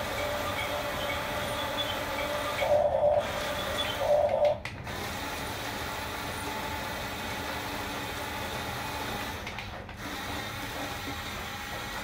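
Huina 1569 RC toy bulldozer's electric drive motors and gears whirring steadily as it crawls on its tracks through sand, with two short louder surges about three and four seconds in.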